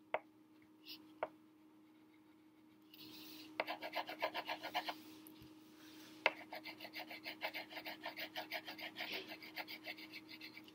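Wax crayon scribbling back and forth on paper, coloring in a drawing: fast scratchy strokes, about five a second, starting about three seconds in after a couple of light taps, with a brief pause and a sharp tap about six seconds in.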